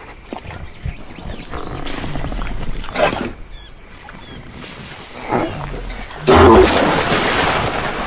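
Cartoon sound effects for an animated, balloon-round giraffe: low animal grunts and calls as it strains and tips forward. About six seconds in comes a sudden loud splashing rush as it rolls over into the water.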